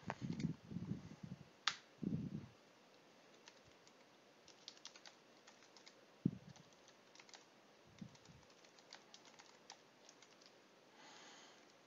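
Computer keyboard being typed on: faint, scattered keystrokes as text is entered, with a few duller thuds in the first couple of seconds.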